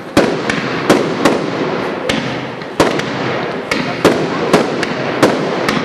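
Fireworks display: aerial shells bursting in quick succession, sharp bangs coming about one or two a second over continuous background noise.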